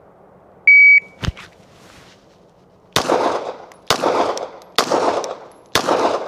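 A shot timer gives one short high beep. About two seconds later a 9mm Glock 17 pistol fires four shots a little under a second apart, each echoing briefly: the first shots of a six-shot bill drill drawn from the holster.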